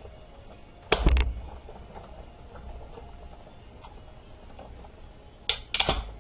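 Big Shot manual die-cutting machine being cranked, a cutting-plate sandwich with a Thinlits die and cardstock passing through its rollers. A low rumble, with a burst of loud clunks about a second in and another near the end.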